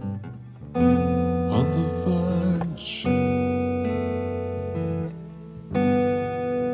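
Acoustic guitar music: chords strummed and left ringing, with fresh chords struck about a second in, at about three seconds and near six seconds.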